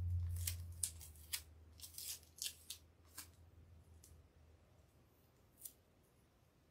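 Faint crackles and sharp little clicks of plastic shipping tape being wrapped and pinched around the end of a string to stiffen it into a point. The clicks come quickly for the first three seconds, then only now and then, over a low hum that fades away in the first two seconds.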